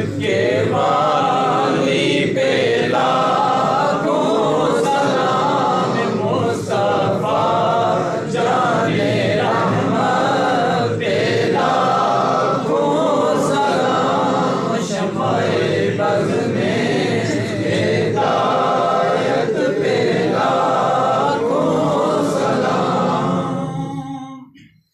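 A group of men's voices chanting salat-o-salam, devotional salutations to the Prophet, together without instruments. The chanting breaks off abruptly near the end.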